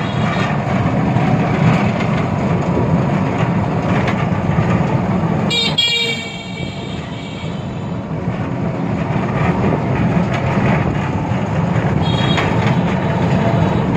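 Steady rumble of a moving auto-rickshaw in street traffic. A horn toots about five and a half seconds in, and fainter toots come near the end.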